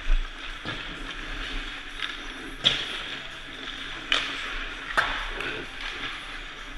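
Four sharp cracks of hockey pucks striking hard surfaces in an ice rink, over a steady hiss of many skates on the ice.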